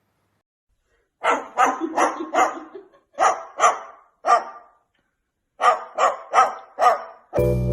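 A dog barking in three runs of quick barks, about eleven in all, after a second of silence. Music starts abruptly near the end.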